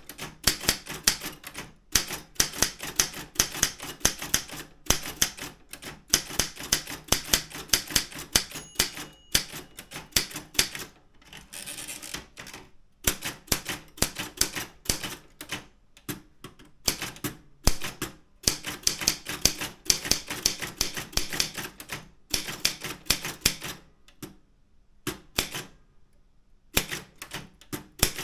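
Daro Optima M16 typewriter keys striking the platen in quick, uneven runs of clicks, with a brief pause about three-quarters of the way through.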